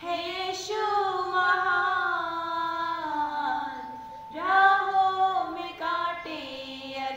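Women's voices singing a prayer song in long, held, gliding notes, with a short pause near the middle before the next phrase.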